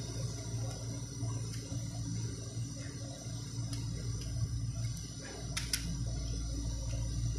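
Plastic bike mobile holder being handled as its clamp knob is turned, with one sharp plastic click a little over five seconds in, over a steady rushing background noise with a low hum.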